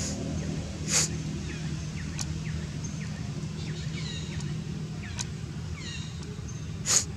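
Outdoor ambience: a steady low hum with many short, falling high chirps through the middle, and two brief sharp sounds, about a second in and near the end.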